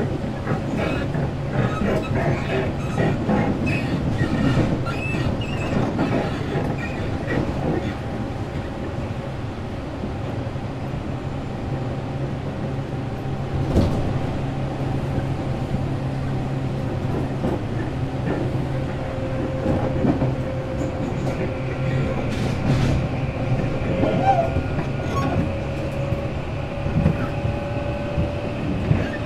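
Tobu 8000 series electric train heard from inside a motor car while running, with a steady low hum and wheels clicking over rail joints in the first few seconds. In the second half, faint whining tones from the traction motors and gears drift slowly in pitch.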